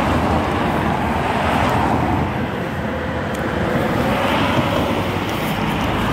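Road traffic noise: a steady rush of passing cars that swells about a second in and again around four seconds.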